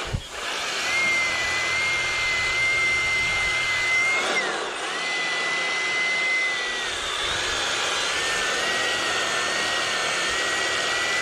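EGO POWER+ cordless power head's electric motor spinning the bristle brush attachment, a steady high whine with the rush of the bristles sweeping sand and grit off the pavement. The whine dips in pitch briefly about four seconds in and again near seven seconds, then settles back.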